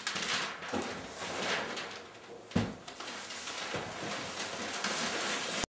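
Packing paper rustling and a cardboard carton being handled as a paper-wrapped picture is lowered into it, with a few light knocks and one dull thump about two and a half seconds in.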